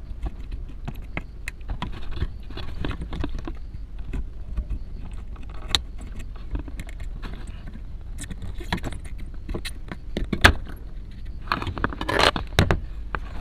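Scattered small metallic clicks and taps of tweezers and a soldering iron against a circuit board as a 2030 audio amplifier IC is desoldered and pried out, over a low steady hum. A busier clatter comes near the end as the tweezers are set down.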